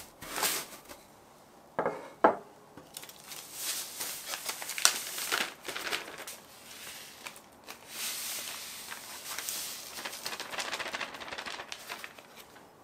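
Plastic zip-top bag crinkling and rustling as glutinous rice flour inside it is crushed fine with a wooden rolling pin and the bag is then handled over a glass bowl, with two sharp knocks about two seconds in.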